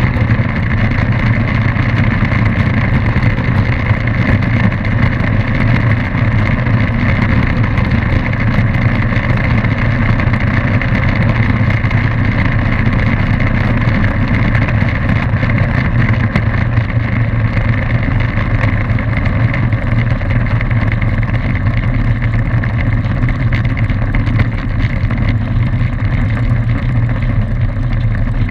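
Light aircraft's piston engine and propeller running at a steady low power while the plane taxis, a constant drone with no change in pitch.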